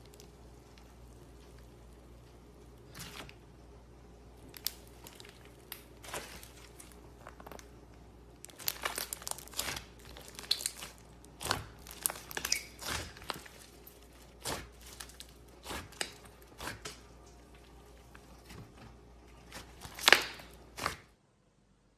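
Slime being squeezed and poked by hand close to the microphone, making crackling, popping clicks. These start sparse, grow thick about a third of the way in, and cut off abruptly just before the end.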